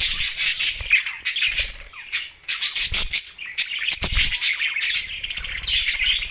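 Budgerigars chirping and chattering continuously, a dense stream of short warbles and squawks.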